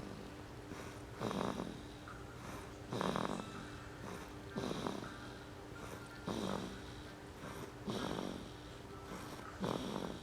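A six-week-old baby snoring in his sleep: a short, buzzing snore on each breath, six of them, coming evenly about every second and a half.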